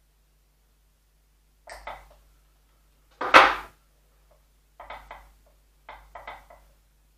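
Short rustling, clicking handling noises from wiring and bending the branches of a small Ficus retusa bonsai by hand. There are four brief clusters: one about two seconds in, a much louder one just after three seconds, and two more near the end.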